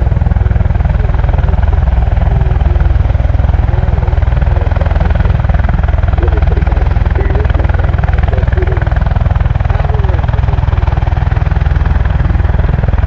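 MV-22 Osprey tiltrotors running on the ground, their twin turboshaft engines and big proprotors making a steady, loud, deep rapid thump.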